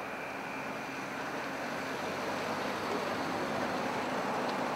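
A steady rushing noise that grows slightly louder about two seconds in.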